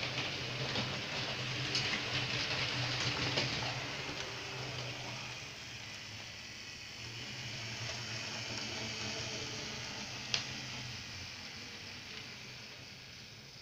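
Small electric model train running on sectional track: a steady whirring hiss from the motor and wheels over a low hum, growing fainter near the end. A single sharp click about ten seconds in.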